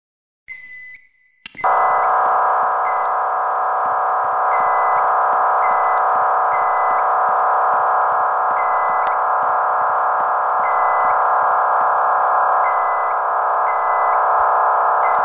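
Fire alarm going off: high beeping tones start about half a second in, then a loud, steady buzzing horn cuts in about a second later and keeps sounding, with the high beeps repeating over it.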